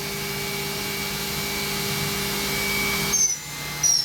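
Mori Seiki NV4000DCG machining center's spindle running at its top speed of 12,000 rpm, a steady high whine with a quiet, even sound. About three seconds in the whine drops away, and two short high chirps follow.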